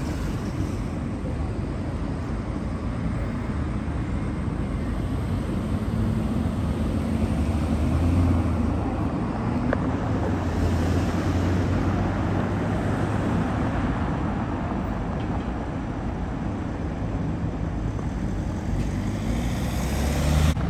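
City road traffic: cars passing with a steady low engine hum and tyre noise, the hum strongest through the middle.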